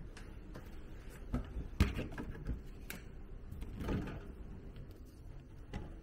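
Handling of a small minibar fridge. There are a few sharp clicks and knocks, the loudest about two seconds in. The door is pulled open about four seconds in with a short noisy sweep, and a last click comes near the end.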